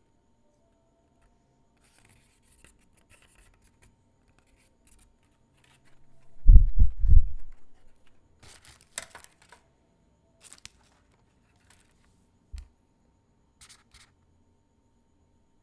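Packaging being handled: faint rustling and scratching, then a quick cluster of three loud low thumps about halfway through, followed by sharp crinkles and clicks and one more thump near the end.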